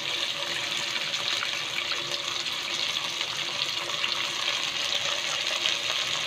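Oil sizzling in a pot with sautéing onion, ginger and tomato as raw chicken wings are laid in: a steady, even hiss with fine crackling.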